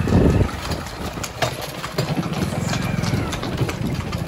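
A motor vehicle engine idling with a steady low pulsing, a loud burst right at the start and scattered sharp knocks.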